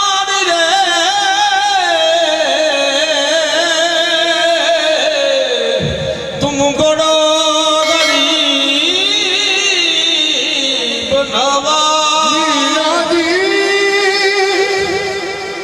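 Qawwali music: a harmonium playing a melody under a man singing long, wavering held notes. The level stays steady and loud, with short breaks in the line about six and eleven seconds in.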